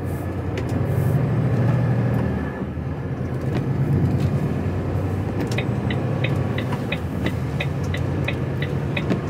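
Inside a heavy goods lorry's cab, the diesel engine runs steadily under way. About halfway through, a regular electronic ticking starts, roughly three ticks a second: the turn-signal indicator.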